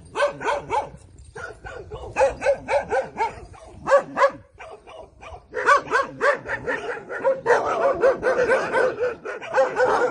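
Several dogs barking, short repeated barks that overlap, growing into a dense, nearly continuous chorus in the last couple of seconds.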